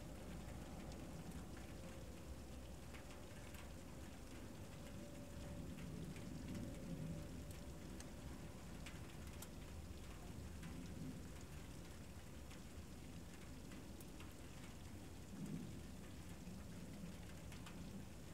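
Faint steady outdoor noise with a low rumble that swells twice, and scattered light ticks.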